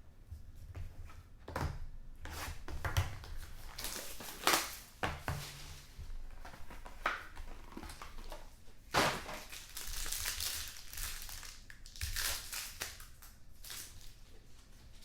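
Irregular rustling and crinkling of trading-card packaging being handled and opened, with a few dull thumps.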